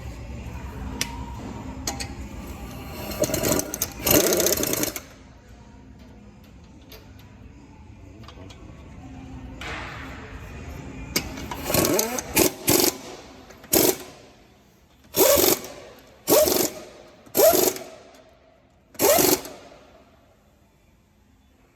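A power tool run in short bursts: a low rumble with two louder runs early on, then about eight short bursts roughly a second apart in the second half, the last a couple of seconds before the end.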